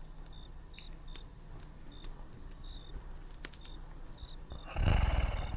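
Faint crackling of a campfire with scattered sharp pops, and short high chirps over it. Near the end, a loud low rumbling animal sound comes in suddenly, pulsing rapidly like a big cat's purr.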